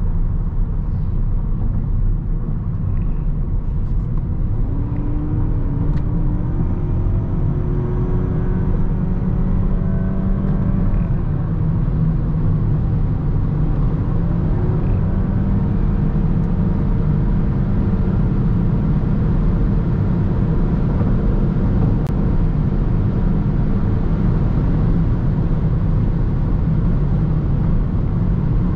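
Interior noise of a 2021 Toyota Corolla Touring Sports 2.0 Hybrid at autobahn speed: a steady low rumble of road and wind, with a faint engine hum that climbs slowly in pitch between about five and eleven seconds in, then holds.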